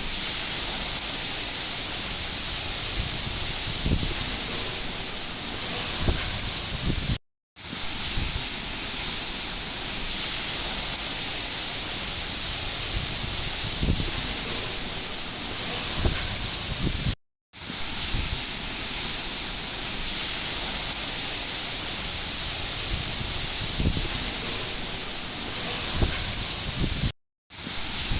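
Steady heavy rain falling, an even hiss with a few faint low thuds. The recording loops, cutting to silence for a moment about every ten seconds, three times.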